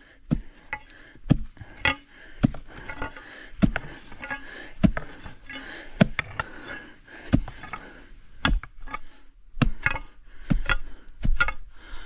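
A hand digging tool striking hard earth, rock and roots again and again, about a dozen blows at roughly one a second, uneven in force and spacing.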